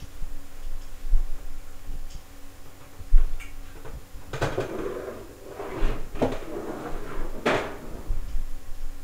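Broom sweeping a hard kitchen floor: a few brushing strokes in the second half. A low thump about three seconds in.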